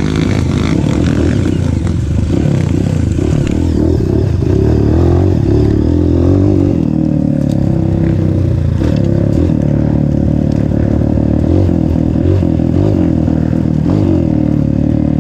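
Motorcycle engine running while riding, its pitch wavering up and down with the throttle.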